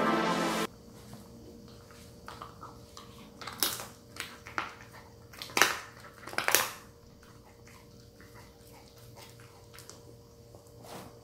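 A Welsh corgi chewing a dried lamb's neck treat: a run of sharp crunching bites, loudest about three and a half, five and a half and six and a half seconds in, then a few faint chewing ticks.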